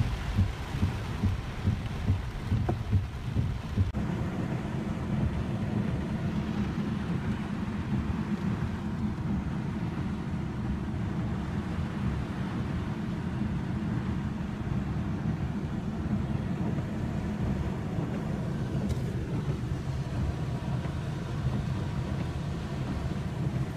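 Steady low rumble of a car's engine and tyres on a wet road, heard from inside the cabin while driving. A rhythmic thumping about twice a second runs over the first four seconds, then the rumble goes on evenly.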